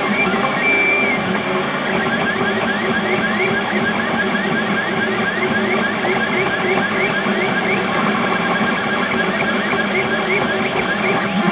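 XYZ da Vinci Mini W+ 3D printer printing, its stepper motors whining through quick back-and-forth print-head moves in short rising chirps, about four a second, over a steady hum.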